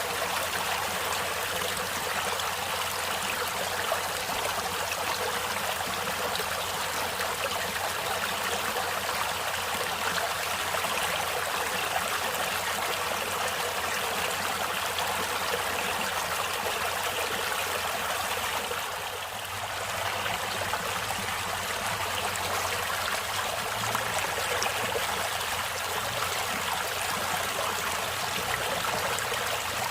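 Stream water flowing steadily with a constant rushing and trickling, dipping briefly about two-thirds of the way through.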